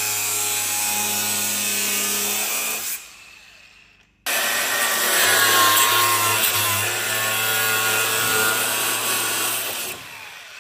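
Handheld power tool cutting or grinding in two steady runs, about three seconds and then about six seconds, with a short pause between.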